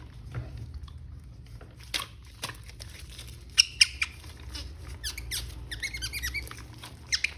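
Plastic toy packaging and figure parts being handled: scattered sharp clicks, then a quick run of short high squeaks near the end.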